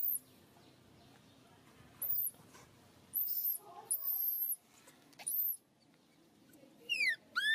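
Newborn macaque crying in a string of very high-pitched, arching squeals, about six over the span, each under a second long, with two lower, falling cries near the end.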